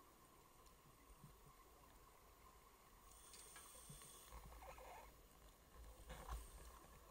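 Near silence underwater, broken by faint, muffled scuba regulator breathing: one burst in the middle and a second near the end.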